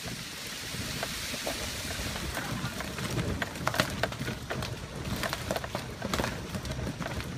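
Golf cart rolling over a path strewn with storm debris, with a steady low rumble and, from about three seconds in, frequent crackles and snaps of twigs and leaves under the tyres.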